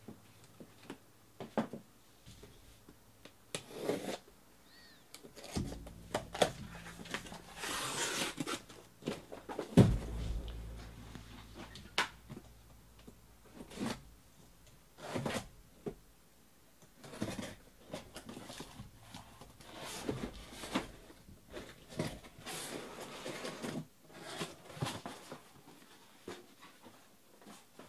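Cardboard shipping case being opened and its boxes of trading cards lifted out and set down: scattered rustling, scraping and knocking of cardboard, with a loud thump about ten seconds in.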